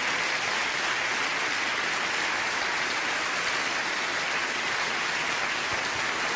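Audience applauding steadily, a live welcome as a guest comes up on stage.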